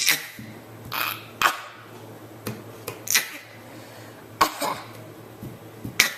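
A series of short, sharp coughs, about six of them, roughly one every second or so.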